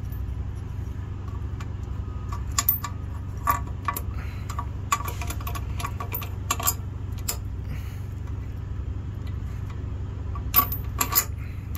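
Metal clinks and scrapes as a caging bolt and nut are worked by hand into the centre hole of a truck's spring brake chamber and turned to find where the bolt catches, in three short clusters of clicks. A steady low hum runs underneath.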